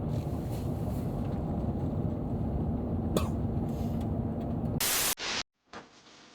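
Vehicle driving: a steady low rumble of engine and travel noise with a steady hum. About five seconds in comes a brief loud rush of noise, then it cuts off abruptly to quiet with a few faint ticks.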